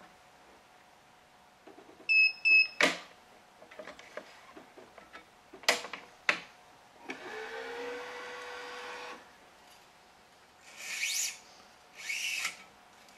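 Electronic tensioner of a badminton stringing machine: two short beeps and a sharp click about two seconds in, another pair of clicks near six seconds, then the tensioner motor running for about two seconds as it pulls a cross string to about 30 pounds. Near the end, two quick swishes as string is drawn through the racket.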